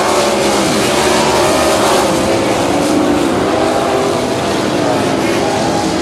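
A field of 360 non-wing sprint cars with V8 engines running together around the track, several engine notes rising and falling as the cars go through the turns.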